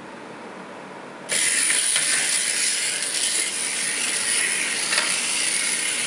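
Tiny electric drive motors and plastic gears of a Trek bot toy robot whirring steadily as it is driven across a table, starting suddenly about a second in and stopping near the end.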